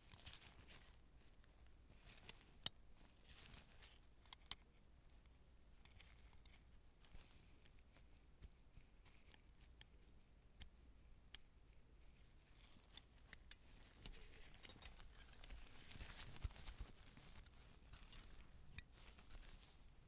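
Small metal surgical instruments clicking and clinking now and then, one sharper click near the start, with a soft crinkling rustle about three-quarters of the way through.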